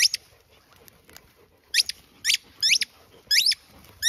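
German Shepherd dog whining in short, high-pitched rising squeals, five of them, bunched closer together in the second half.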